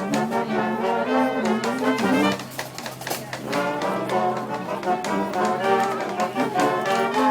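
Brass marching band playing live: trumpets and trombones playing sustained notes over drum hits, with a brief lull a little over two seconds in.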